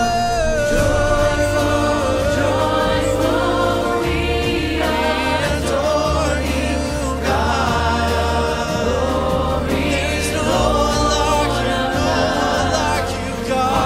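A choir singing church music, with held low accompaniment notes that change every second or two beneath the voices.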